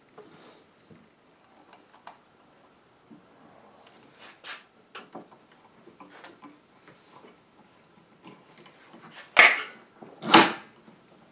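Metal clamps being handled and fitted to the edge of a wooden tabletop: scattered light clicks and rattles, then two sharp knocks about a second apart near the end.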